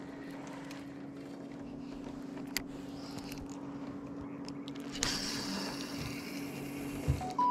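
Small fishing boat's motor humming steadily at one pitch. From about five seconds in there are a couple of seconds of hiss and rustle as a spinning rod and reel are handled close by, then a sharp knock near the end.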